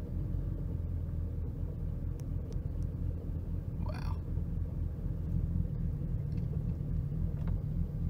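BMW N54 twin-turbo inline-six idling rough enough to shake the car, heard from inside the cabin as a steady low rumble, with the engine in reduced-power mode.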